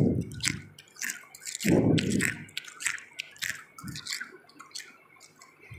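Freezer frost crunching: a run of sharp crackles, with two heavier crunches, one at the start and one about two seconds in, thinning out toward the end.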